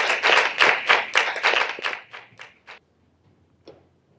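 A small group clapping hands, dense at first and then thinning out to a few last claps before stopping just under three seconds in.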